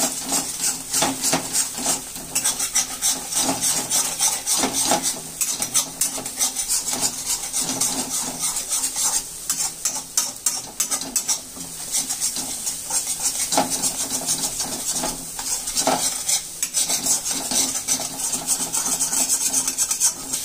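A spatula repeatedly scraping and knocking against a pan while chicken, beans, carrots and eggs sizzle in hot oil as they are stir-fried together.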